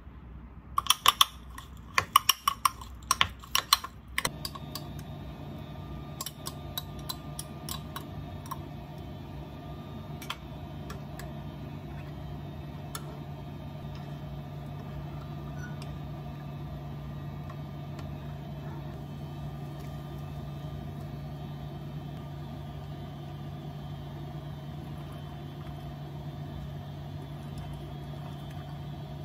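A run of sharp clicks and taps for the first few seconds, then a steady mechanical hum from an appliance starts about four seconds in and runs on evenly, with a few faint ticks over it.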